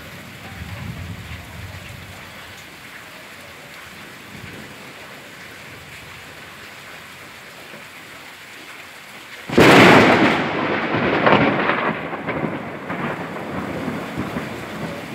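Steady rain falling through the night, then a sudden close thunderclap about two-thirds of the way through that cracks sharply and rumbles away over several seconds.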